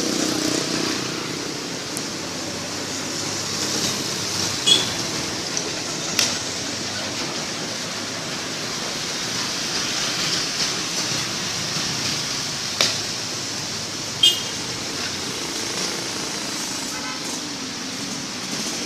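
Street traffic: motor scooters passing close and other vehicles running, a steady engine and road noise. Four short sharp sounds cut through it, two of them brief high beeps.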